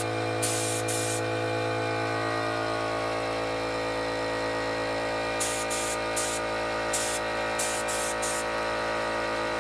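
A gravity-feed paint spray gun hisses in short bursts as its trigger is pulled, spraying paint onto a speaker box. A steady low hum runs underneath. There are a few bursts near the start and a quicker run of them later on.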